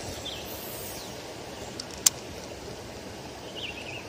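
A cast with a baitcasting rod and reel: a faint high whir just after the start as line pays out, then one sharp click about two seconds in, typical of the reel being engaged after the cast. Under it runs a steady outdoor hiss with a couple of faint bird chirps.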